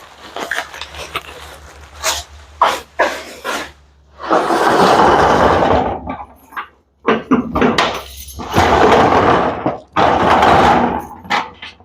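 Storage unit being closed up: a metal roll-up door rattling in two long runs of about two seconds each, with clanks and knocks before and between.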